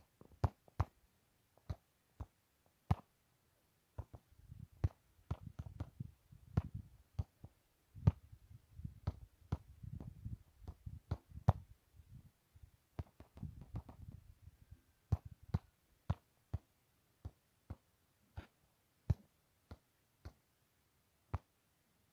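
Irregular sharp clicks, a few a second at most, with low rumbling from about four to fourteen seconds in: handling and wind noise on a phone's microphone.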